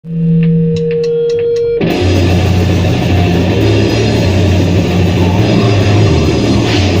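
Noise-rock band at rehearsal playing loudly. A held, droning guitar tone with a few picked notes gives way about two seconds in to a dense wall of heavily distorted guitar and bass.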